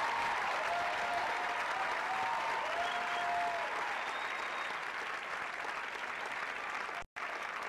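Audience applauding, with a few cheering voices held over it in the first seconds; the applause thins slowly and cuts out for a moment near the end.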